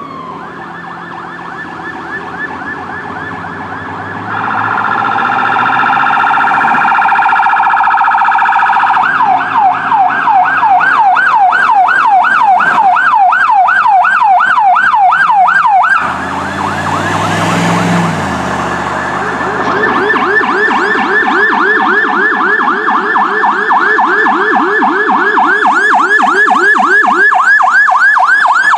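Electronic emergency-vehicle sirens yelping in fast rising-and-falling sweeps as fire apparatus respond past. A steady blaring horn tone sounds for several seconds around the fourth second. About sixteen seconds in, a vehicle passes close with its engine dropping in pitch, and after that two sirens sweep together.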